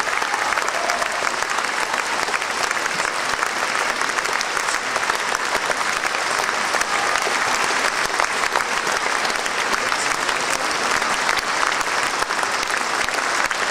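Concert audience applauding steadily, many hands clapping together without a break.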